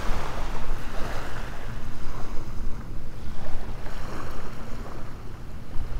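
Wind buffeting the microphone in a steady low rumble, over the wash of small waves lapping on a sandy beach.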